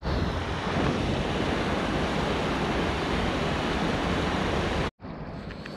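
Steady, loud rushing of river water, with wind rumbling on the microphone. Almost five seconds in it cuts off sharply to a much quieter background with a few faint ticks.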